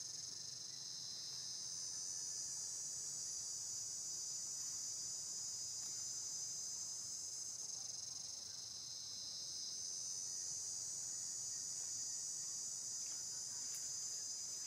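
Steady, high-pitched chorus of insects, easing off a little about a second in and again around eight to nine seconds.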